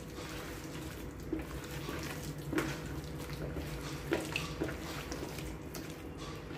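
A hand squishing and kneading chicken lollipops through a thick, sticky marinade of cornflour, flour and egg in a plastic bowl: irregular wet squelches, over a steady low hum.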